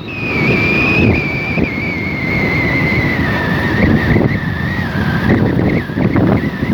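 A motorcycle on the move, with wind rushing over the microphone and a clear high whine that slowly drops in pitch.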